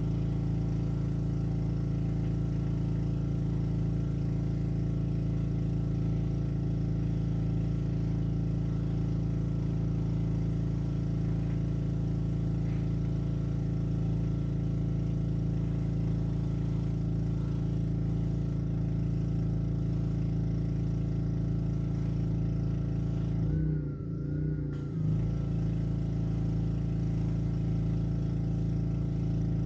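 Honda engine of a Black Max pressure washer running steadily. About three-quarters of the way through, its level briefly dips and its pitch wavers, then recovers.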